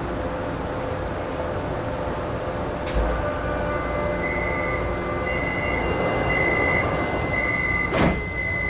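Kaohsiung MRT train at a station stop: a steady high warning beep repeats about once a second over the car's steady hum, then the sliding doors shut with a sharp knock near the end, the door-closing signal and the doors closing.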